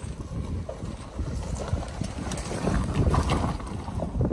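Jeep Wrangler crawling slowly over loose rocks: a low engine rumble under the crunch and knock of tyres rolling over stones.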